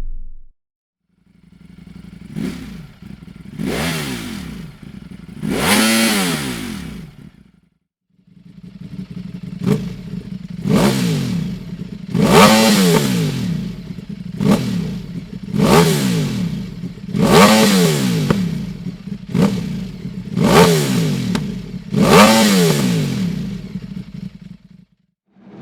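Ducati Streetfighter V4's 1103 cc V4 engine, through a Dominator aftermarket exhaust with the catalyst removed, free-revving: short throttle blips that climb and fall back to idle, about a dozen of them in two runs with a brief break between.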